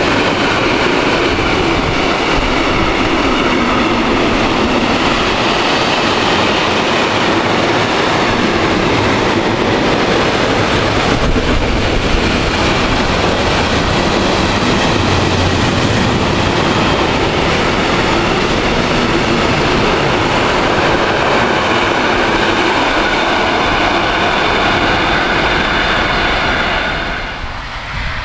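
A long train passing close by on the line, the steady noise of its wheels on the rails running on and then falling away abruptly near the end as the last car clears.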